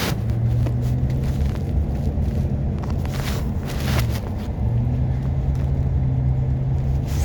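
Inside a moving car: a steady low engine drone with road rumble, dipping briefly about four seconds in. A sharp click comes right at the start.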